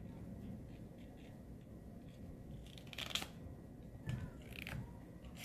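Sheet of paper being folded and creased by hand: a few short crinkles, the loudest about three seconds in.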